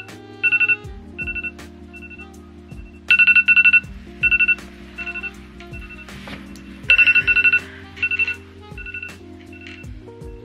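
Electronic wake-up alarm beeping in rapid bursts of about four shrill beeps, each burst followed by fainter repeats; a new burst starts about three seconds in and again about seven seconds in. Soft background music plays underneath.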